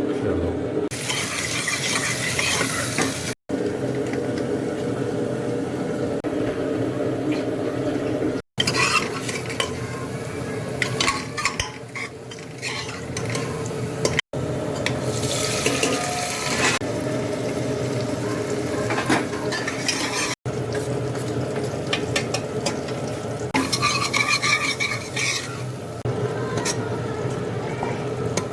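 Potato and eggplant sabzi frying in a pan, sizzling as it is stirred, with the spoon scraping the pan. The sound breaks off to silence for an instant four times, at edits.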